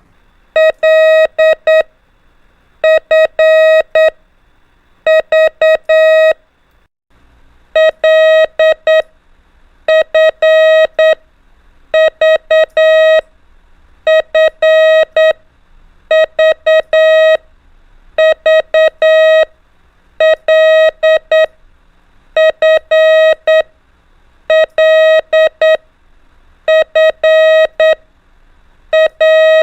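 Morse code practice tones: one mid-pitched beep keyed in dots and dashes, sending the letters L, F and V (four elements each) one after another, about one letter every two seconds, over and over.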